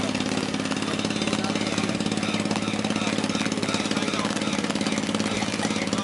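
An engine running steadily with a fast, even knocking beat.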